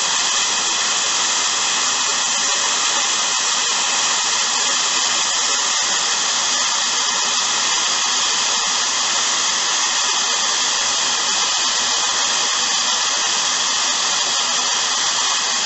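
Vacuum cleaner running steadily, drawing air through a Yamaha TDM 850 carburettor for airflow balancing: a loud, even, hissing whine that does not change.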